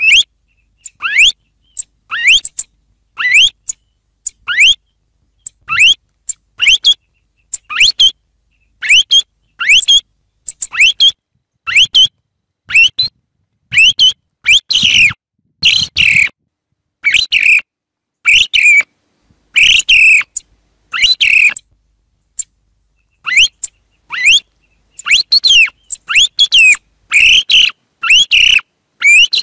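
Song thrush singing: a string of short, loud, clear notes and phrases, many sweeping sharply upward, separated by brief silences and bunching closer together in the last few seconds.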